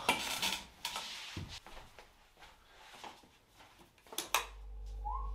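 Two sharp clicks of a wall light switch about four seconds in, after a few faint knocks and rustles of movement. Right after the clicks a low steady hum and a faint whistled tone begin.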